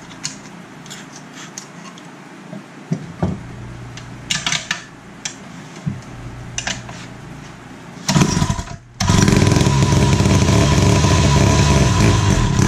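Wright B-520 reciprocating saw's 115 cc two-stroke engine being primed and pull-started by hand: small clicks and handling knocks at first, then about eight seconds in it fires, falters for a moment and catches, running loud and steady to the end.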